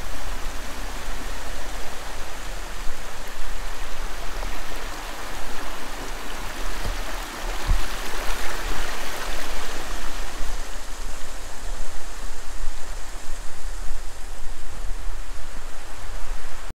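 Steady rush of falling water from Metlako Falls on Eagle Creek, with a low rumble underneath.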